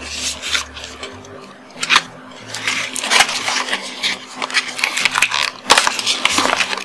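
A webcam's packaging being handled and opened, crackling with many quick clicks. A sharp click comes about two seconds in, then a dense run of crackling until near the end.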